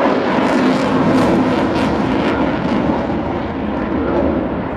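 Aerobatic display aeroplane's engine noise, a steady rushing drone with a faint hum in it, easing off a little near the end, as the aircraft flies its manoeuvres.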